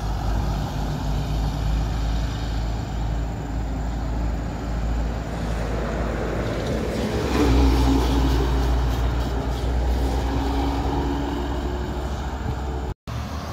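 Heavy road vehicles, buses among them, passing on a highway: a steady engine and tyre rumble that swells as a louder vehicle goes by about seven and a half seconds in, carrying a steady engine tone. The sound cuts out for a moment near the end.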